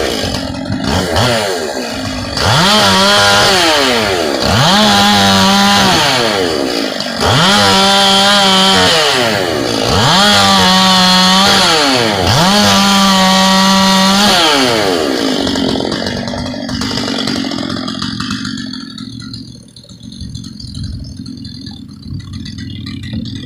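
Gas chainsaw fitted with a full-chisel chain, throttled up to full speed and back down about five times in a row as it cuts wood. Near the end it drops back to a low idle.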